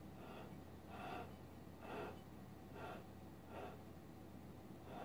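Faint, soft swishes repeating about once a second: a spatula pushing and spreading a thick layer of frosting across the top of a cake.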